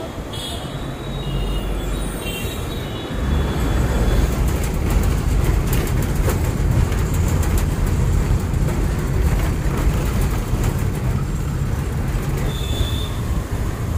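Street traffic noise, then from about three seconds in the steady engine rumble and road noise of a moving city bus heard from inside, with scattered rattles.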